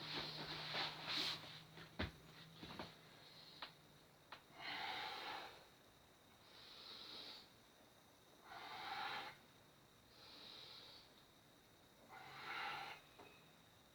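A person breathing slowly and audibly through the nose, five paced breaths alternating in and out about every two seconds. A few soft clicks and rustles of movement come in the first few seconds.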